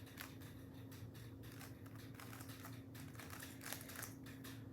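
A 3x3 Rubik's cube being turned by hand through an algorithm, its plastic layers clicking in quick, irregular twists.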